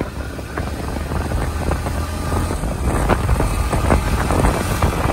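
Yamaha MT-15 motorcycle on the move: a steady low engine and road rumble, with wind buffeting the microphone in irregular crackles that grow stronger about three seconds in.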